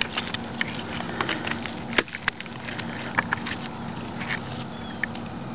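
Dry grass and loose pine bark on the forest floor rustling and crackling as a hand handles them, with many small scattered clicks.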